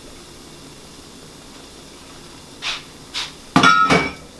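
A metal kitchen utensil knocking against a cooking pot: two light knocks, then a louder burst of quick knocks with a metallic ring near the end.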